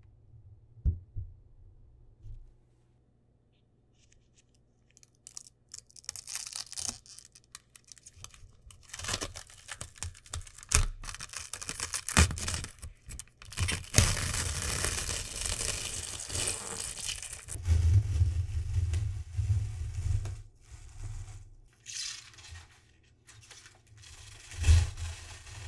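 Protective plastic film being peeled off a 3D printer's acrylic visor: a crackling, tearing rustle that starts a few seconds in and goes on in long pulls. A few dull knocks come later on.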